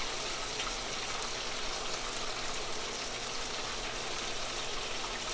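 Chicken pieces frying in oil in a skillet, a steady sizzle.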